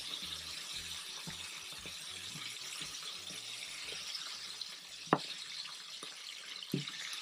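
Snails in their shells and fried onion sizzling in olive oil in a frying pan, a steady hiss. A sharp click comes about five seconds in and another near the end.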